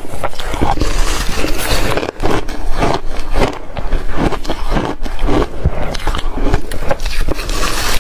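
Close-up chewing and crunching of shaved ice: a dense, irregular run of crisp crunches with no let-up.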